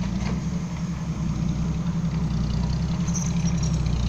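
Dump truck's diesel engine running steadily, slowly growing louder.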